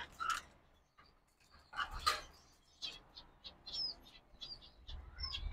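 Small caged finches chirping in short, high calls, several as quick rising and falling notes. A couple of knocks and rattles from the cage dishes being handled come through, the loudest about two seconds in.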